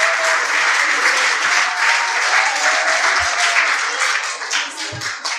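Audience applauding. The clapping thins out into separate claps and dies away near the end.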